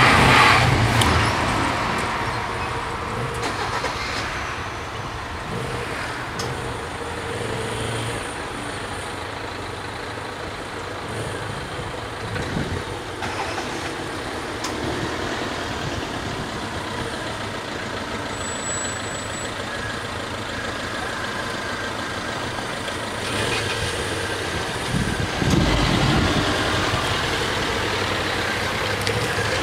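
Diesel railcar passing over a level crossing, fading away within the first few seconds. Then the steady hum of road vehicles idling at the lowered barriers, with engines getting louder near the end as a car and a motorcycle pull away across the tracks.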